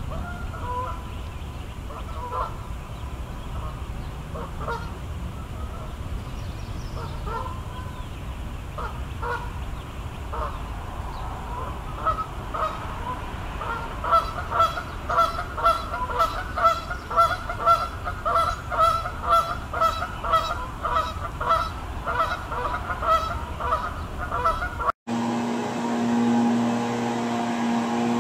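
Waterfowl honking over and over, at first scattered, then about two calls a second for some ten seconds. Near the end the sound cuts to a steady low hum.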